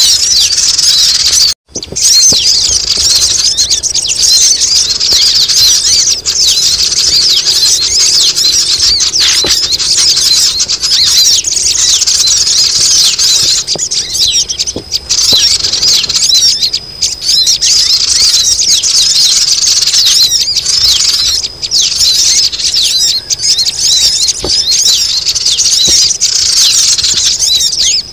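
Dense, busy chorus of quick, high-pitched chirps and twitters from many sogon sunbirds calling at once, the kind of noisy recording used as a lure to bring the birds down. It cuts out for an instant about a second and a half in.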